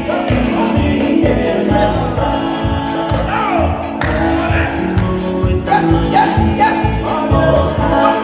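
Group of voices singing a Tongan ma'ulu'ulu song in harmony over a fast, steady drum beat.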